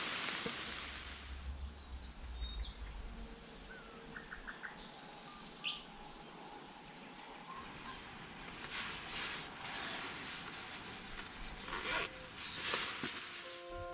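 Rain easing off to light patter and dripping, with a few short, faint bird chirps. Near the end comes a louder rustle of a sleeping bag.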